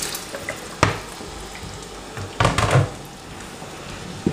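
Meat stock pouring from a plastic bowl into a steel pot of thick ogbono soup trails off, followed by kitchenware knocking against the pot: one sharp knock about a second in, a short cluster of clattering knocks around the middle, and another knock at the end as a wooden spoon goes in to stir.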